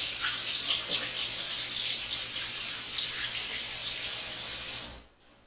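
Kitchen tap running water in a steady stream, shut off suddenly about five seconds in.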